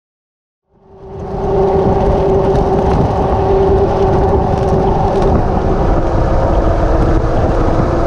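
Jeep Wrangler JK driving on a dirt trail: a steady engine drone with road and tyre noise, fading in about a second in after a moment of silence.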